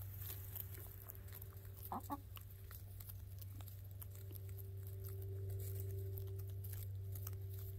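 Hens clucking softly as they forage, with one short louder cluck about two seconds in. Small clicks and rustles of pecking in dry straw and grass run through it, over a steady low hum.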